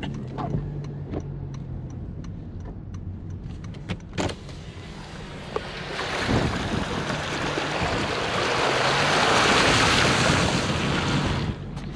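Car driving through floodwater on a street: a quiet engine hum at first, then from about halfway the hiss and splash of the front tyre throwing up spray, building to a loud peak and cutting off about a second before the end.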